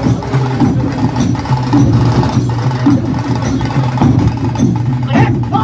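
Music with a steady percussive beat over a repeating bass line.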